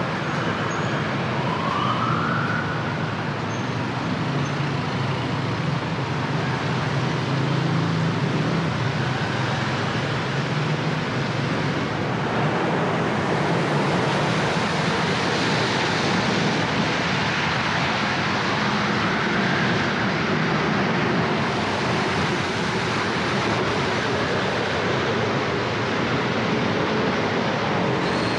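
Steady city traffic noise while driving on a rain-wet road: car engines and tyre noise. A short rising whine comes in about two seconds in, and a fainter one again near the twenty-second mark.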